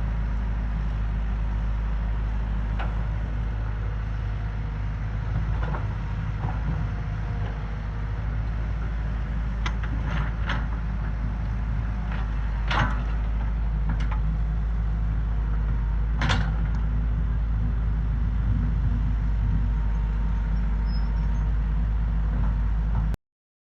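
Bulldozer diesel engine running steadily with a heavy low rumble. A few sharp clanks come through it around the middle. The sound cuts off abruptly just before the end.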